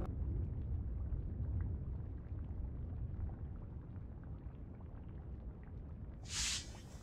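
A low rumble that slowly fades, with a short bright hiss about six seconds in.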